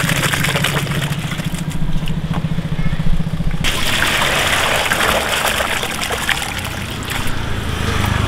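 A small engine hums steadily. Then, about three and a half seconds in, broth is poured from a plastic tub into a stainless-steel bowl, splashing and trickling for about three seconds.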